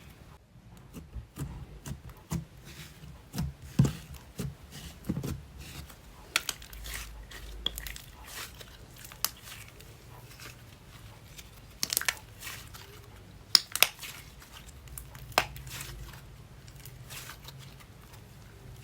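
Slime being squished, pressed and stretched by hand, giving irregular sticky clicks and pops, with a few louder pops scattered through.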